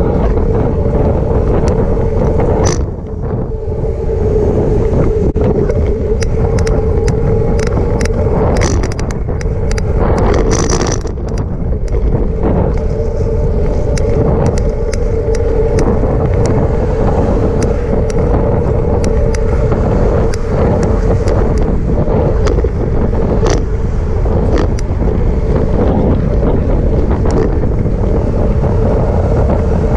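Wind buffeting the microphone of a bike-mounted camera while cycling, over rumble from the tyres on the path. A steady hum runs underneath, and scattered clicks and knocks come from bumps in the path.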